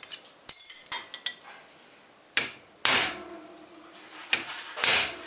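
Hammer striking a steel drift punch against the crank cotter pin of a bicycle bottom bracket to drive the pin out. A metallic clink comes about half a second in, then several sharp blows, a couple of them ringing briefly.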